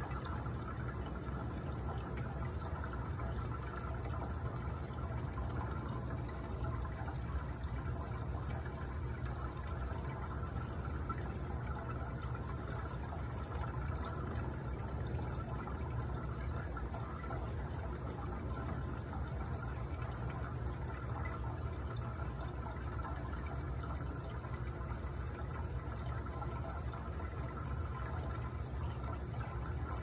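Steady rush of water circulating through the compost water heater's tank and pipes, driven by its pump, with a low hum underneath and no change throughout.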